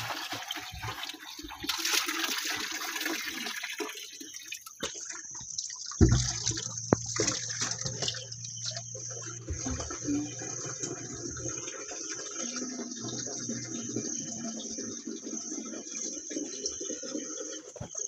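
Water running and splashing into a plastic jerrycan held down in a shallow spring pool as it fills. A thin, steady high-pitched tone sets in about five seconds in.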